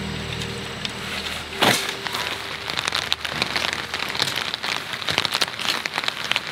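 Rain falling steadily, with many individual drops heard as sharp ticks and one louder knock a little under two seconds in.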